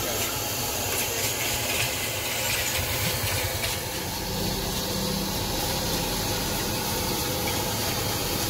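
Fire under a street-cart wok burning with a steady roaring hiss.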